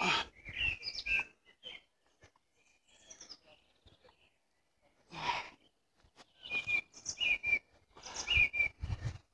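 Small birds chirping and calling in short, repeated pitched phrases, with a quiet gap in the middle and a brief rush of noise about five seconds in.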